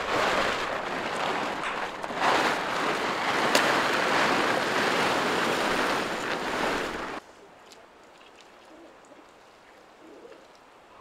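Large plastic tarp being dragged and rustled, a loud crackling rush that stops abruptly about seven seconds in.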